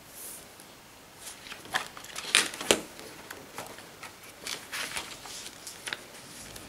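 Paper pages of a spiral-bound planner being turned by hand: a series of short rustles and flaps, with two sharper snaps about two and a half seconds in.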